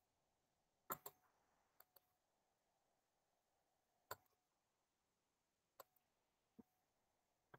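Faint computer mouse clicks, a handful at irregular intervals with some in quick pairs, over near-silent room tone.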